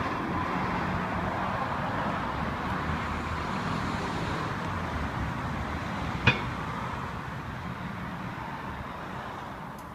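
A SkyTeam 50cc scooter's engine running, gradually growing fainter, with a single sharp click about six seconds in.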